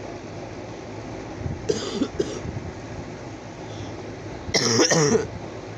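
A person coughing: two short coughs about two seconds in, then a louder, longer cough near the end.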